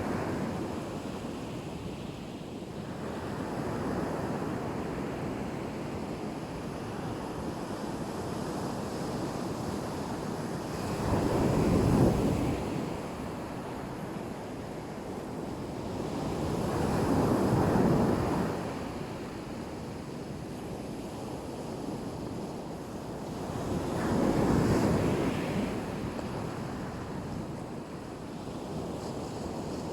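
Black Sea surf washing onto the beach: a steady wash of waves, with three louder breakers surging in and falling away about six seconds apart.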